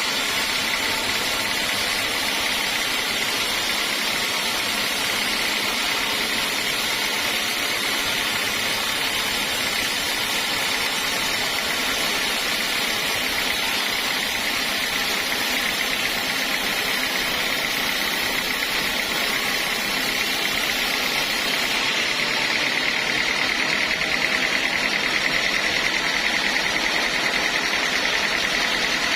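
Sawmill saw running steadily, a constant whine over machine noise; about three-quarters of the way through it grows slightly louder.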